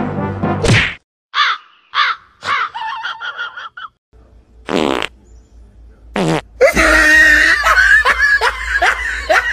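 Cat vocalising with a few short calls, then a loud run of rough, repeated growling yowls in the last few seconds.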